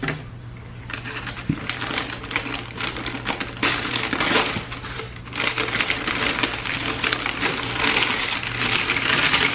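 Wrapping paper crinkling and rustling as a bundle of clothes is unwrapped by hand, a dense crackle that grows louder and busier about halfway through.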